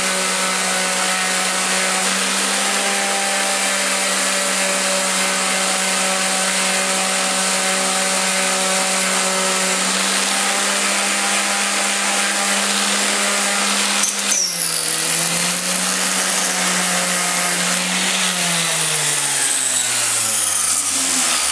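Hand-held random orbital sander running steadily, sanding excess baked polymer clay off a wooden keychain inlay, with a brief knock about two-thirds of the way in. Near the end its motor hum falls in pitch as it winds down.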